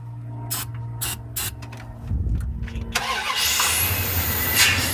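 Starter cranking the 2001 Dodge Ram 1500's engine on starting fluid after two years of sitting. About two seconds in the engine catches with a low, rough rumble, runs louder for under two seconds, and falls away near the end without keeping running.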